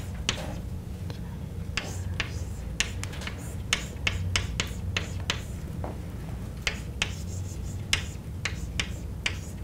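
Chalk writing on a chalkboard: an irregular run of sharp taps and short scratches as the chalk strikes and drags across the board, over a steady low hum.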